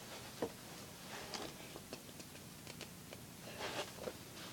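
Faint rustling and a few scattered small clicks of someone handling small objects close to the microphone, with a slightly louder rustle near the end.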